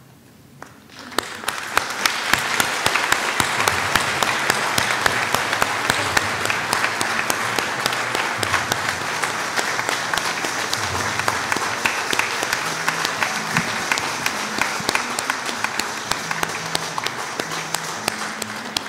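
A crowd clapping: applause that breaks out about a second in, holds steady, and eases slightly near the end.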